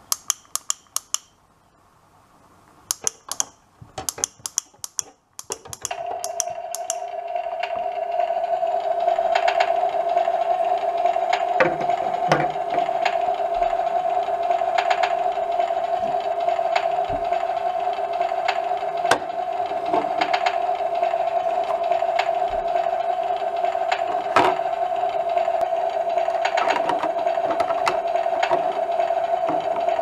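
Sharp plastic clicks as a toy grill lighter is pressed against a battery-operated toy barbecue. About six seconds in, the toy's electronic grilling sound effect starts from its small speaker: a steady tone with a hiss above it, with occasional plastic taps as toy food and tongs touch the grill.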